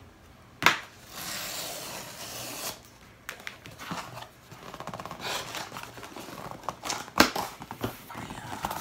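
Box cutter slitting the packing tape on a cardboard shipping box, then the cardboard flaps scraping and rustling as they are pulled open. A sharp click comes just under a second in, and a loud sharp knock about seven seconds in.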